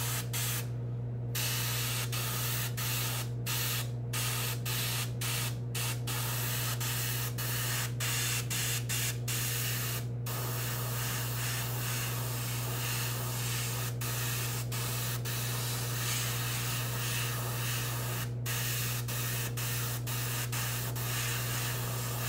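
Gravity-feed airbrush spraying pearlized gold paint in light passes: a steady hiss of air and paint, cut by many brief stops, over a steady low hum.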